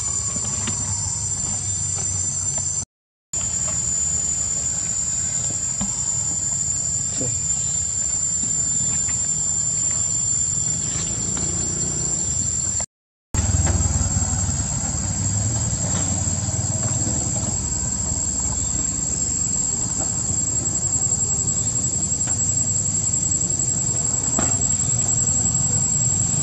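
Insects buzzing steadily at a high pitch, with a low rumble underneath. The sound drops out briefly twice.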